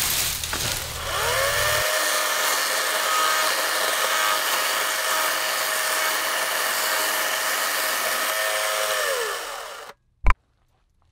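Battery-powered Atlas 40V electric chainsaw spinning up with a rising whine, running steadily while it cuts through a palo verde branch, then winding down and stopping. A single sharp knock follows near the end.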